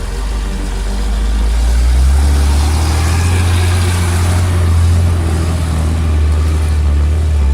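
Heavy machine's engine running steadily with a deep hum, and a band of work noise that swells about two seconds in and eases off toward the end.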